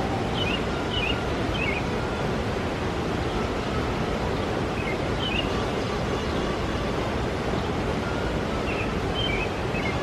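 Steady rush of water from a river rapids ride. Over it, short high falling chirps come in three brief groups: about a second in, around five seconds in, and near the end.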